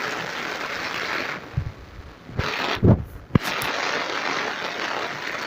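Heavy rain falling steadily, dropping away for about two seconds in the middle, where a few short low thumps and knocks sound before the rain returns.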